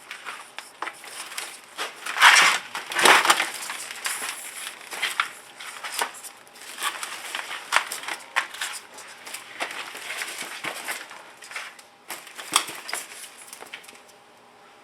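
Potting soil being added to a plant pot by hand: irregular crunching and rustling with small sharp clicks, loudest about two to three seconds in, dying down near the end.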